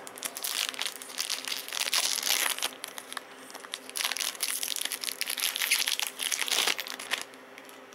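Foil booster-pack wrapper crinkling and crackling in the hands in dense, irregular bursts, stopping near the end.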